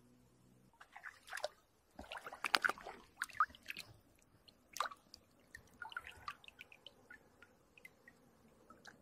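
Water splashing and dripping as a hand lowers a perch into shallow lake water for release: a cluster of irregular splashes in the first few seconds, then scattered small drips and trickles.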